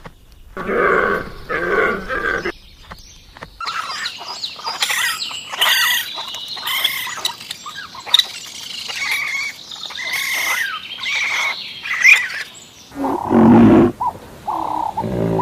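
A run of different animal calls: a few pitched calls in the first two seconds, then many birds chirping and whistling for about nine seconds, then loud, lower animal calls near the end.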